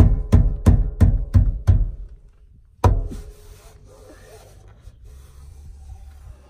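A JL Audio 15W0v3 subwoofer grille being hammered into its mounting ring with the side of a fist: a quick run of about six deep thumps, three a second, then a pause and one last thump a little before halfway.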